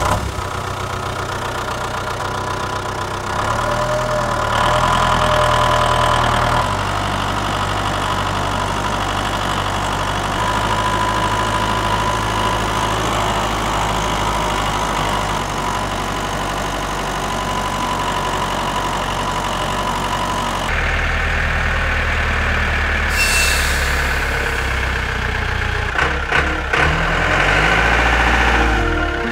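Tractor engine running steadily, its tone shifting abruptly a few times, about 3.5, 7 and 21 seconds in.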